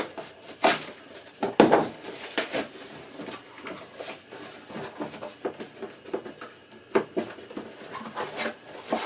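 Small cardboard box being opened by hand: packing tape cut and peeled and cardboard flaps bent back. Irregular short scrapes and rustles, the loudest in the first two seconds.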